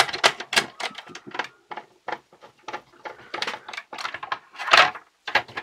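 Irregular plastic clicks and knocks as the toy pinball game's plastic gearbox and gears are handled and fitted into its plastic shell, with one louder clack near the end.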